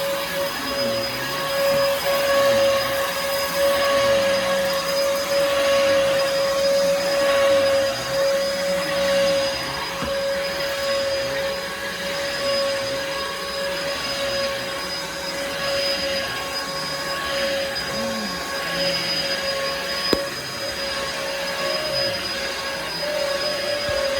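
Bissell Helix vacuum cleaner running steadily with a constant motor whine. Its lower sound swells and eases unevenly, and there is one sharp click about twenty seconds in.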